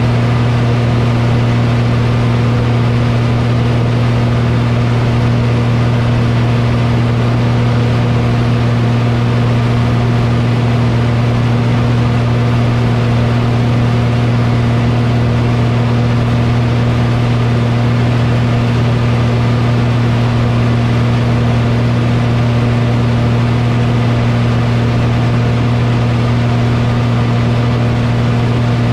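Light aircraft's piston engine and propeller droning steadily in flight, heard from inside the canopied cockpit: a deep, unchanging hum with a rushing noise over it.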